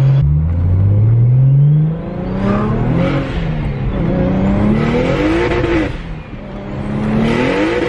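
BMW N54 straight-six with a single turbo and a VRSF 3.5-inch exhaust with the street muffler, accelerating hard. The revs climb, drop back at each of several gear changes, then climb again, with turbo and wastegate hiss near the top of each pull.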